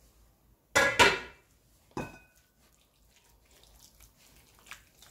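Metal cookware clanking: two quick knocks about a second in, then one ringing clink near two seconds, followed by faint small clicks.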